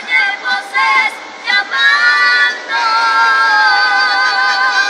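Mexican Christian music playing, a singing voice holding long notes with vibrato.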